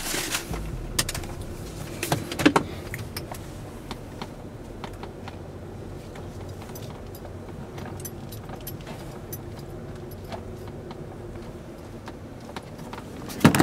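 Inside a car cabin: the vehicle's steady low rumble, with scattered small clicks and knocks and a few louder knocks about two seconds in.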